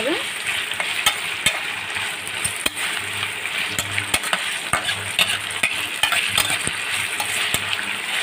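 Sliced onions sizzling in hot oil in a nonstick frying pan, stirred with a spatula that clicks and scrapes against the pan many times.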